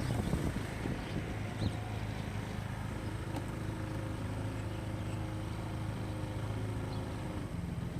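Engine of a LIKE Colombo 150 scooter running steadily with a low, even hum.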